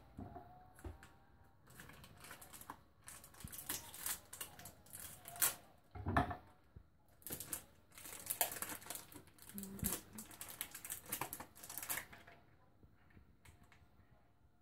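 Kitchen knife chopping on a cutting board in quick, irregular taps, mincing ingredients finely; the chopping stops about two seconds before the end.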